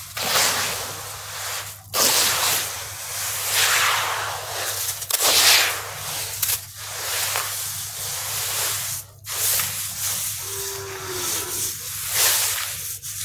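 Wet crushed red dirt being squeezed and stirred by hand in a basin of water: gritty, crunchy swishing and squelching in repeated swells, one every second or two.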